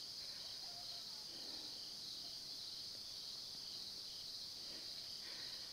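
Steady, high-pitched chorus of insects such as crickets chirring in the woods, with no break.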